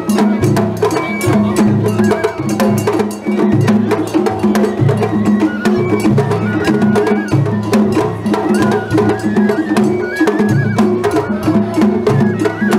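Japanese festival-float hayashi music: drums beaten in a fast, steady rhythm with a clanging hand gong and a bamboo flute melody over them.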